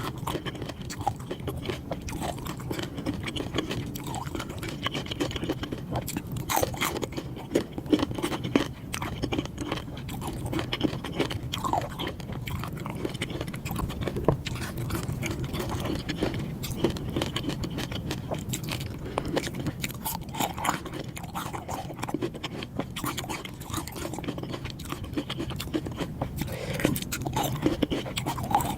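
Close-miked mouth sounds of a person eating: chewing and biting crunchy food, with frequent irregular crackles.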